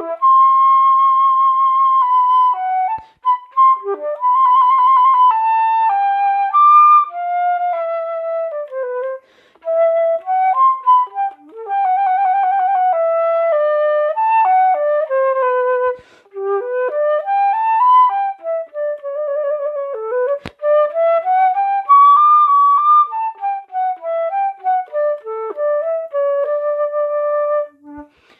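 Concert flute playing a single unaccompanied melodic line of held and quick notes, with a few short breaks for breath.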